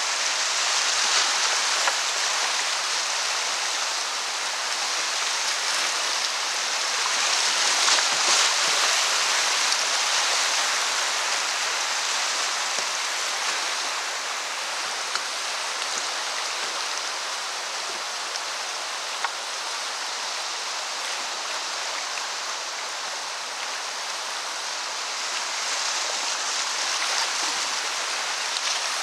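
Whitewater rapids rushing past a kayak, a steady dense hiss of fast water over rocks that swells louder about a quarter of the way in and again near the end.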